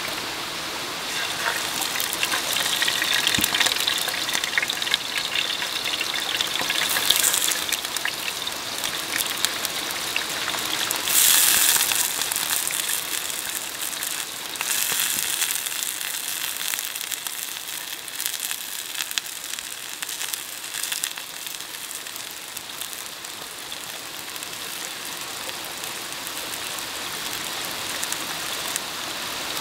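Food sizzling in hot oil in a small frying pan over a wood fire: a steady sizzle with louder surges about 7 and 11 seconds in.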